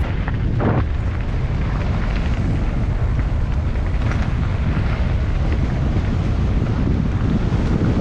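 Wind buffeting the action camera's microphone as a steady low rumble, with the crunch and rattle of mountain-bike tyres rolling over loose gravel.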